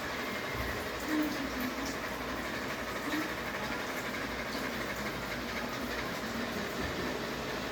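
Ceiling fan running, a steady even whirring noise.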